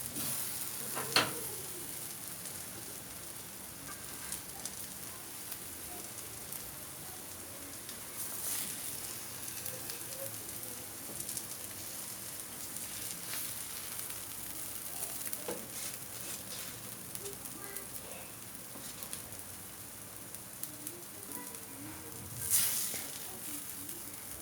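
Oil sizzling and crackling in a frying pan, a steady hiss with small pops. There is a sharp clink about a second in and a brief louder surge of sizzling near the end.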